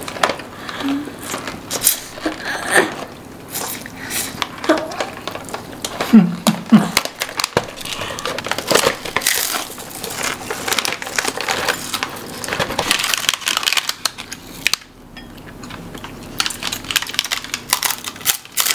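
Irregular crinkling and crackling of a plastic snack wrapper as a Big Roll seaweed snack is handled and opened, with a short low hum about six seconds in.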